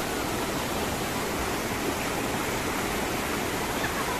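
Fast-flowing mountain stream rushing over rocks: a steady, even rush of white water.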